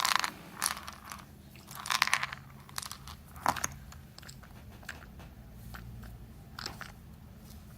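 Small toy shakers rattled in short bursts, four or so shakes in the first few seconds, then only a few faint ticks.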